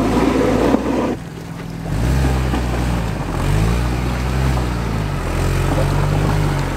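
A rushing noise for about the first second, then a car engine revving up and down several times under load.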